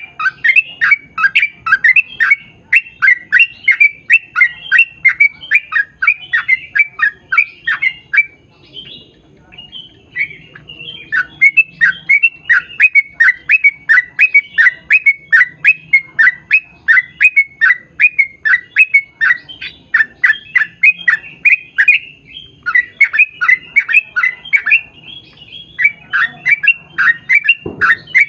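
Yellow-vented bulbul (trucukan) singing a long, fast run of short downward-slurred chirping notes, about three to four a second, broken by two brief pauses. There is a short low thump near the end.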